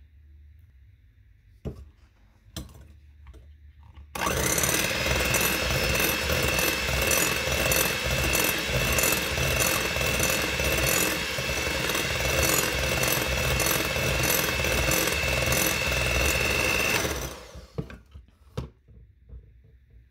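Electric hand mixer beating egg whites and sugar in a glass bowl: it switches on about four seconds in, runs steadily with a high whine for about thirteen seconds, then switches off. A couple of light knocks come before it starts and a few after it stops.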